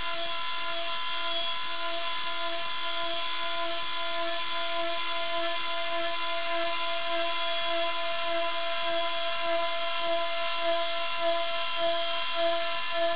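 CNC router spindle whining steadily as it mills a small pulley, with a pulsing lower hum under the whine. Near the end the sound swells in regular beats, a little under two a second.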